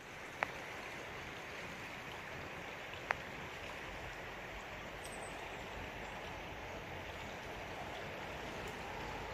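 Clear, shallow forest stream running over rocks: a steady, even rush of water. Two small clicks come through, about half a second and three seconds in.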